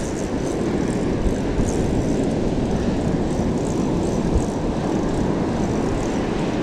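Steady rush of surf breaking on the beach, with wind buffeting the microphone.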